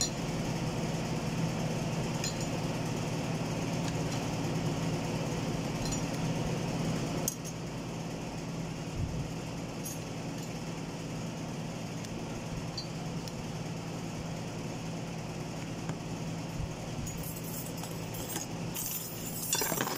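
Metal automatic-transmission parts (clutch drums, clutch plates and steel rings) clicking and clinking now and then as they are handled and fitted, over a steady low machine hum that drops in level about seven seconds in. The clinking gets busier in the last few seconds.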